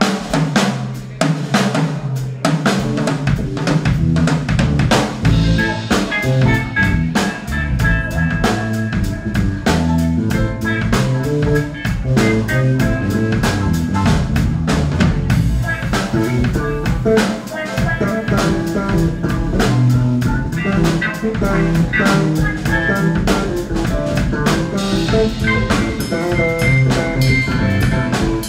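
Funk band playing live without vocals: a drum kit with snare and rimshot hits keeps a steady beat under electric guitar and bass guitar.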